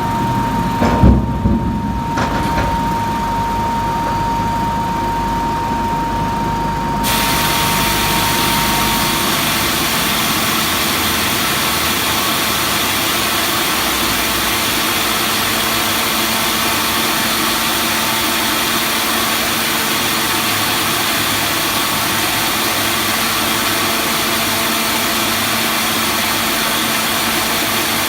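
Veneer peeling line running steadily, with a high whine and low hum and a few knocks about a second in. About seven seconds in the sound switches abruptly to a dense, even machine noise with a lot of hiss, which holds steady.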